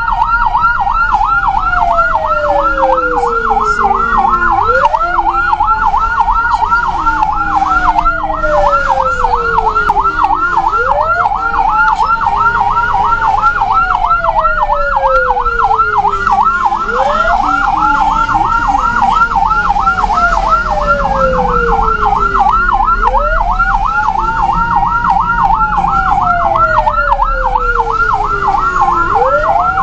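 Ambulance siren sounding continuously: a fast warble at about four cycles a second over a slow wail that rises quickly and falls away, repeating about every six seconds.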